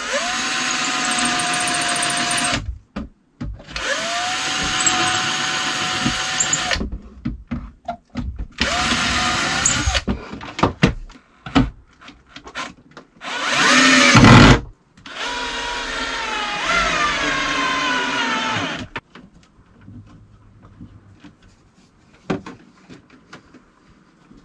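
Cordless drill running in five bursts of one to four seconds. The motor whine holds an even pitch in most bursts and drops in pitch through the last one as it loads up. It stops about three-quarters of the way through, leaving a few faint clicks.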